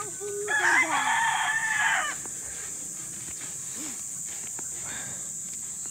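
A rooster crowing once, one call of about two seconds at the start that rises, holds and falls away, over a steady high-pitched insect buzz.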